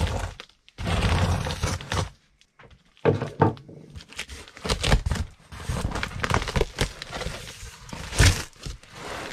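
Packing tape on a cardboard box slit with a spokeshave blade in long scraping strokes over the first two seconds. Then the cardboard flaps are pulled open, with tape tearing, cardboard crinkling and several thumps, the sharpest near the end.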